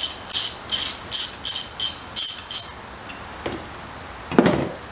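Ratchet on an extension clicking in quick repeated strokes, about two and a half a second, as a 12 mm bolt is backed out. The clicking stops after about three seconds, and a single knock follows near the end.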